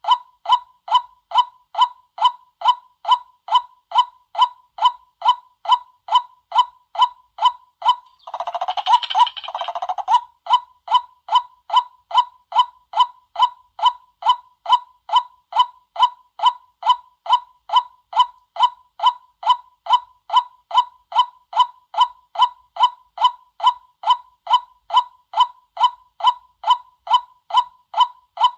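White-breasted waterhen calls played as a decoy: a monotonous 'kwak' note repeated evenly about two and a half times a second, with a louder, rougher burst of calling about eight and a half to ten seconds in.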